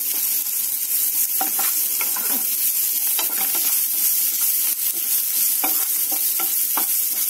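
Chopped onion, green chilli and garlic sizzling steadily in hot oil in a nonstick frying pan, with a spatula scraping and stirring them now and then.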